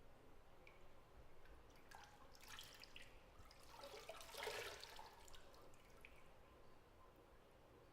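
Quiet drips and small splashes of bathwater in a bathtub, clustered in the middle, the loudest just past halfway.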